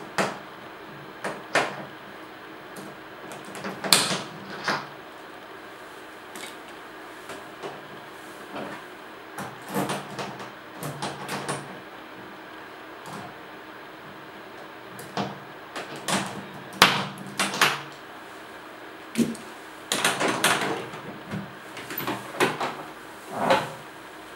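Keys turning in padlocks and steel hasps being unhooked on a plastic cash box: irregular metal clicks, clinks and knocks, then the box's plastic lid knocking open near the end.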